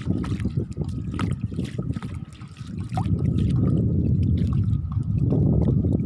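A dog's paws splashing as it wades through shallow water, over a dense low rumble that becomes louder and steadier about halfway through.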